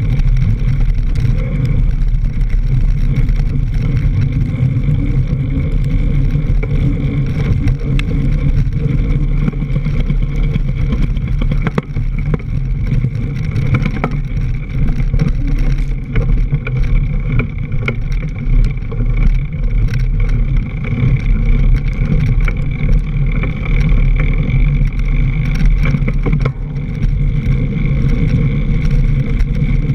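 Mountain bike ridden fast over a dirt trail, heard through a camera mounted on the fork: a loud, steady rumble of wind and tyre vibration with frequent small knocks and rattles from the bumps.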